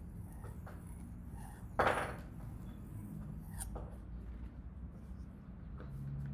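Printmaking knife blade drawn across a sharpening stone: one short, louder scrape about two seconds in and a fainter one near the middle, among light handling clicks.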